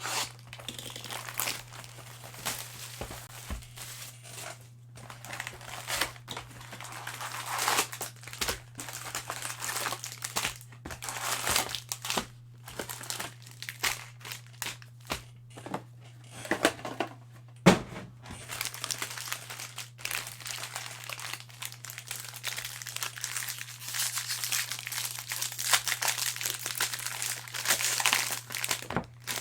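Card-pack wrappers crinkling and being torn open in irregular bursts of rustling, with one sharp tap about two-thirds of the way through.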